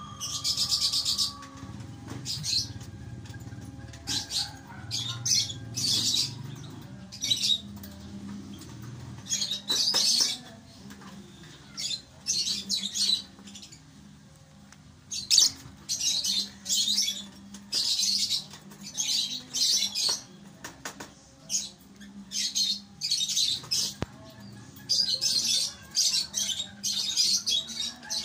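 Lovebirds chirping: short, high chirps that come in irregular clusters, some in quick runs of several.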